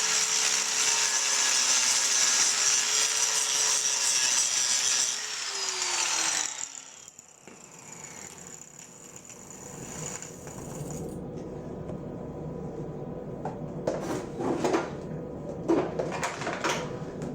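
Angle grinder grinding steel to clean a bare spot for the welder's ground clamp. It runs steadily, is switched off about five seconds in and winds down. A few quieter clicks and knocks follow.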